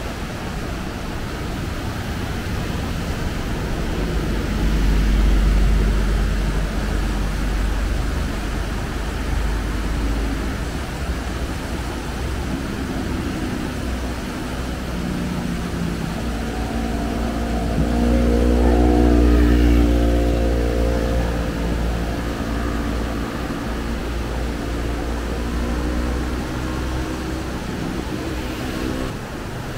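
Two vehicles drive past over a steady rush of water from the swollen, flooded stream. The first passes about five seconds in; a louder one passes around nineteen seconds in, its engine hum swelling and then fading.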